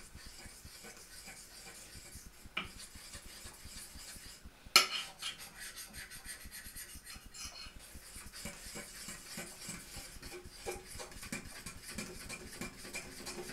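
Fork whisking pancake batter in a bowl, quick repeated scraping strokes against the bowl, with a sharp clink of the fork on the bowl about five seconds in.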